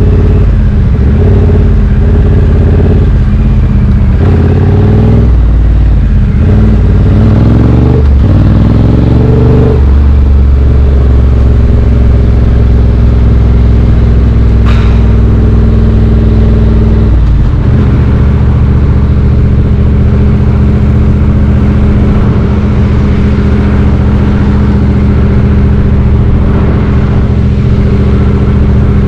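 A Triumph Street Twin's 900 cc parallel-twin engine running through British Customs slash-cut exhaust tips. For about the first ten seconds the revs rise and fall as it pulls through the gears, then they hold steady, and about 17 seconds in the engine drops to a lower steady note.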